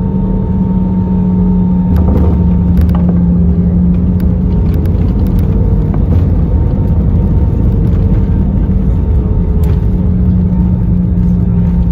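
Airbus A320 cabin noise on landing: a steady engine hum over airflow, then about two seconds in a thud and a heavier low rumble as the wheels meet the runway, with a few cabin rattles and clicks during the rollout.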